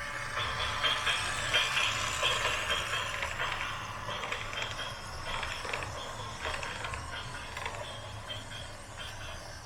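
Heavy machine's engine running as a steady low rumble, with irregular metallic rattling and clatter over it, busiest in the first few seconds.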